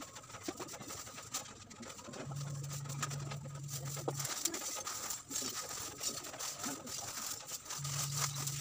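Lumps of charcoal clinking and clattering as a gloved hand scoops them into a thin plastic bag, with the bag rustling. A low, steady hum comes in twice, for about two seconds each time: a couple of seconds in, and again near the end.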